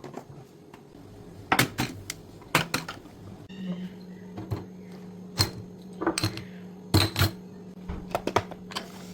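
Kitchen containers and groceries being handled and set down: irregular sharp knocks and clinks. A steady low hum starts about a third of the way in.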